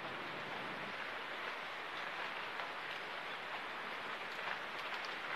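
A steady hiss, with faint rustles and snaps of chilli plants as red peppers are picked by hand.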